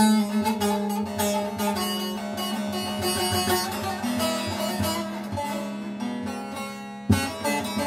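Long-necked bağlama (saz) played solo with a plectrum: a fast picked melody over a steady drone of the open strings. A hard strummed accent rings out near the end. It is the instrumental passage between sung verses of a Turkish folk song (türkü).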